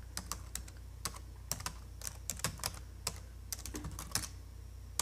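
Computer keyboard typing sound effect: irregular quick key clicks, a few a second, over a faint low hum.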